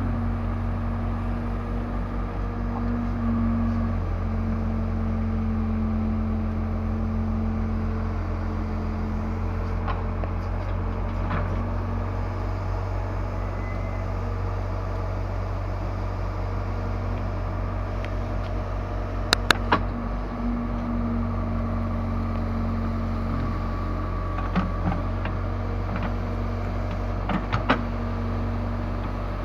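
Case 580L backhoe loader's four-cylinder diesel engine running steadily, with a steady tone over the engine drone that strengthens now and then. A quick run of three sharp clicks comes about two-thirds through, and a few more sharp knocks near the end.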